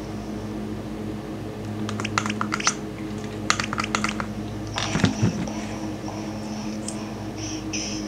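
Two short runs of quick clicks and taps, about two and three and a half seconds in, then a brief knock about five seconds in, over a steady low electrical hum.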